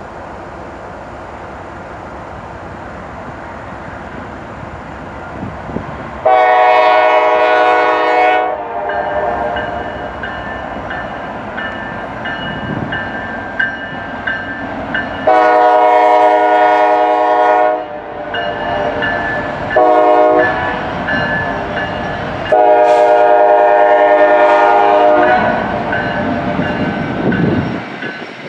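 Diesel freight locomotive's air horn blowing the grade-crossing signal: two long blasts, a short one, then a long one, each a chord of several notes. Between and under the blasts, the lead units' diesel engines run and the train rolls past.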